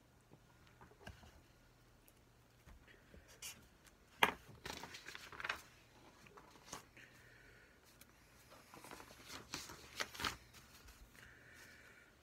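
Faint rustles and light taps of hands striking and brushing each other and the jacket sleeves while signing, with a sharper tap just over four seconds in and a cluster of taps around nine to ten seconds, over a faint low hum.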